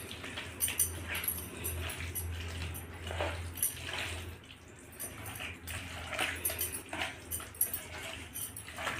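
Hand squishing chicken pieces through a thick yogurt and spice marinade in a steel plate: irregular wet squelches with light clicks.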